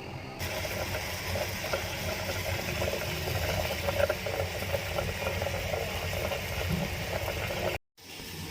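Water bubbling at a steady boil in a pot on the stove, over a low steady hum, cut off suddenly near the end.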